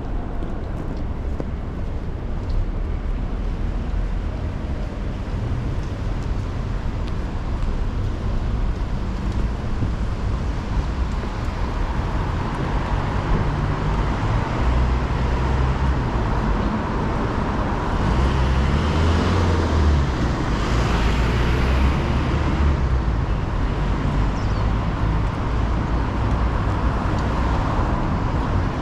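Road traffic on a rain-wet city street: a steady low engine rumble and tyre hiss, with one vehicle passing louder about two-thirds of the way in.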